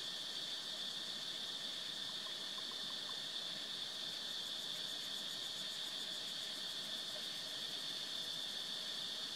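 Steady, high-pitched chorus of insects, droning without a break.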